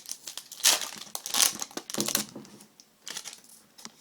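Wrapper of a 2011-12 Upper Deck Artifacts hockey card pack crinkling as it is opened, in loud rustling bursts through the first half that thin out near the end.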